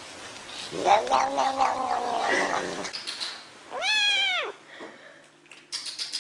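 An adult cat yowls in one long, wavering call, then a kitten gives one short meow that rises and falls in pitch.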